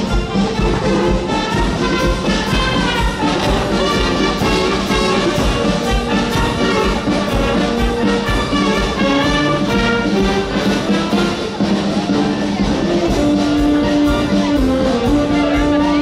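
Live band with brass to the fore, trumpets and trombones, playing a tune over a steady beat.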